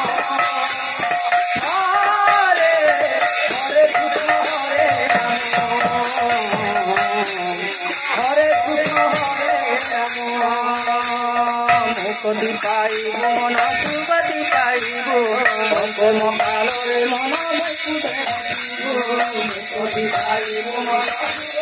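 Sambalpuri kirtan music: a melody carried over a hand-played barrel drum, with small jingling cymbals keeping a steady beat.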